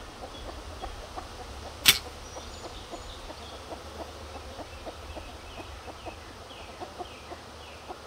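A single sharp click about two seconds in as a wooden frame is worked loose in a bee nuc box, followed by faint scattered handling ticks. Poultry cluck faintly in the background.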